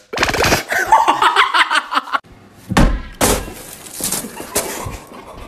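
Excited shouting for about two seconds, then a heavy thud about three seconds in, quickly followed by a crashing bang and another knock.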